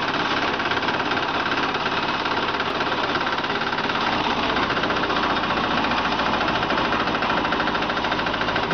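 Truemax JZ350E concrete mixer running: a steady mechanical rattle and hum that holds even throughout.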